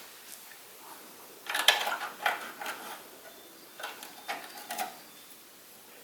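Short metallic clicks and clinks of tools or brake parts being handled, in two brief clusters, one about one and a half seconds in and one around four seconds in.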